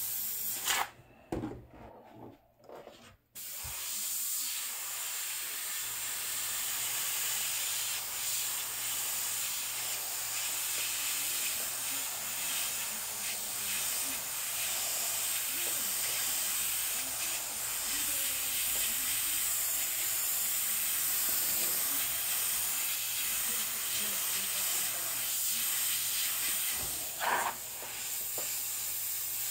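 Airbrush spraying paint with a steady hiss of air. The air cuts out for a couple of seconds near the start, then comes back on and holds steady, with one brief louder sound near the end.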